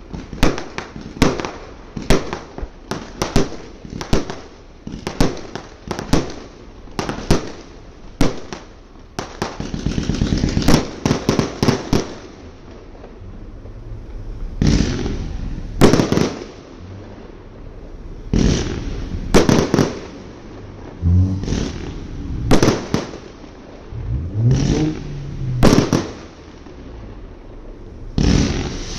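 Fireworks going off: sharp bangs about two a second at first, a rapid crackling run of reports around a third of the way in, then fewer, louder bangs a second or two apart.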